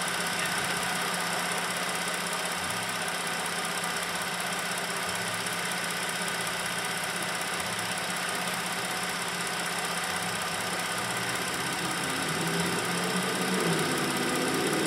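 2010 Ford Fusion Sport's 3.5-litre V6 idling steadily in neutral, warmed up for an automatic transmission fluid check, heard in front of the open hood.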